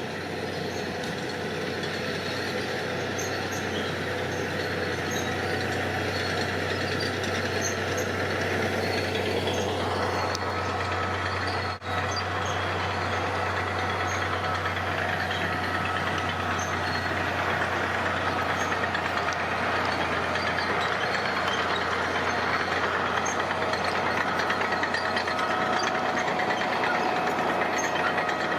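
Diesel engine of heavy earth-moving machinery running steadily, with a strong low hum. The sound drops out for an instant about twelve seconds in.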